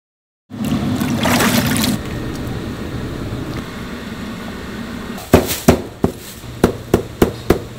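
Liquid splashing and running as braised pig's trotters are lifted out of a steaming pot of braising liquid, then, from about two-thirds of the way in, a run of about seven sharp chops of a cleaver through braised pig's tail onto a cutting board.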